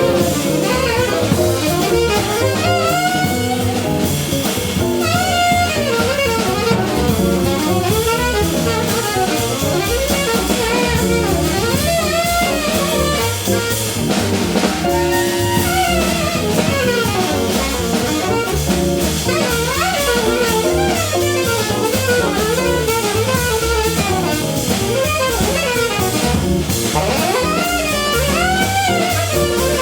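Small jazz group playing live: guitar and saxophone over bass and drum kit, the melody lines bending and running continuously.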